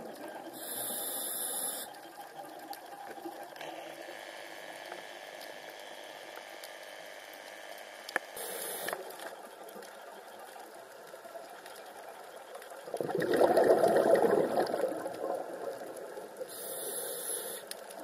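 Scuba diver breathing underwater through a regulator: a hissing inhalation about a second long near the start, another about eight seconds in and another near the end, and a loud rush of exhaled bubbles about thirteen seconds in. A faint steady hum runs underneath.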